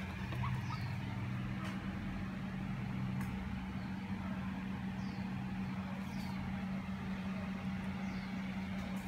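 A steady low mechanical hum, with a second lower tone in its first few seconds. A few faint, short, falling high chirps and light clicks sound over it.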